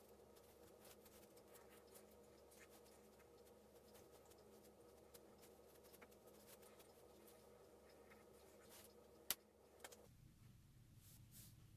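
Faint scratching of a marker pen drawing outlines on paper, over a low steady hum, with one sharp click about nine seconds in.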